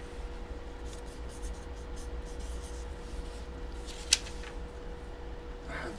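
Faint scratching and rustling of paper being handled, with one sharp click about four seconds in, over a steady low electrical hum.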